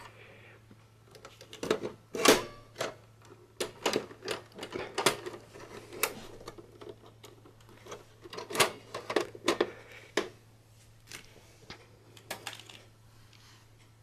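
Irregular clicks, knocks and scrapes of a DVD drive's metal casing being worked into the drive bay of a Dell Optiplex 755 case, with louder knocks about two seconds in and again past eight seconds. A faint low steady hum runs underneath.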